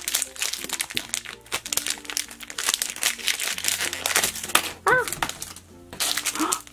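Foil blind-bag packet crinkling as it is handled and pulled open by hand, a dense stream of small crackles, with soft background music underneath.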